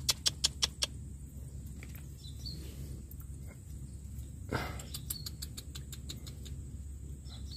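A quick run of about seven sharp clicks in under a second, then a quiet background with faint bird or insect chirps and a single short rustle about four and a half seconds in.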